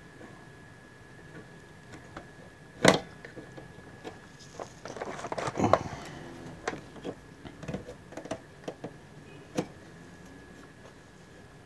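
Clicks, taps and rattling of a pliers-type hand tool working against the metal case and circuit board of an opened inverter welding machine. There is one sharp click about three seconds in and a burst of clattering around five to six seconds, then lighter ticks.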